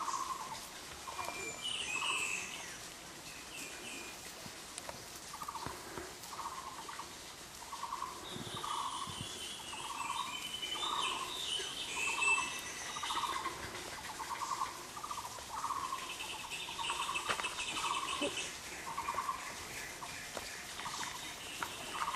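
Birds calling: a short buzzy note repeated about once a second, with a pause of a few seconds early on, and higher chirping and twittering from other birds now and then.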